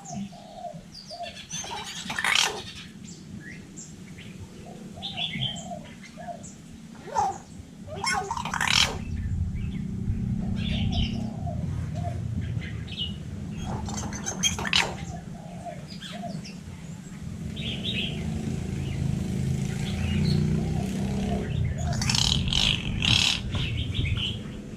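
Hill myna calling: a handful of sharp, shrill calls, about two, nine, fifteen and twenty-three seconds in, with softer warbling notes between them. A steady low hum comes in about nine seconds in and carries on under the calls.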